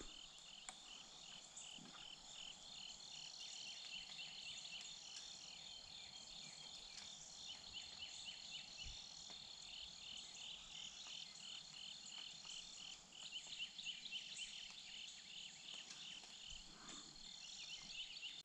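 Faint insects chirping in a fast, even rhythm, with a thin steady high ringing behind.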